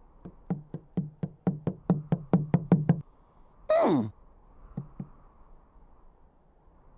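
Cartoon sound effects: a run of about fifteen hollow knocks that quicken over three seconds, then a short, loud pitched glide falling steeply in pitch, followed by two faint clicks.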